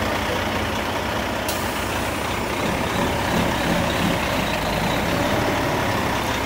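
Heavy diesel dump truck engine running close by as the truck creeps up, a steady low rumble.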